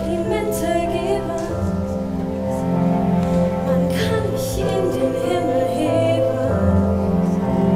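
Woman singing a musical-theatre song in long held notes over instrumental accompaniment.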